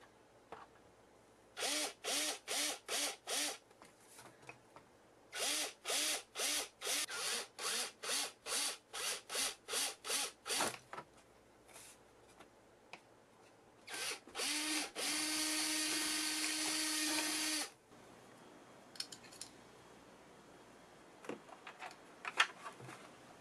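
Cordless drill boring screw holes into a rocket's airframe. It starts with runs of short trigger pulses, two to three a second, each spinning up briefly, then runs steadily for about three and a half seconds before stopping. Faint handling clicks follow near the end.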